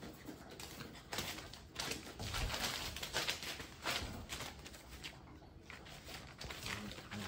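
Bullmastiff puppies scampering in play on a hard floor: a busy, irregular patter of paws and claws clicking and scuffing, thickest in the middle and thinning out near the end.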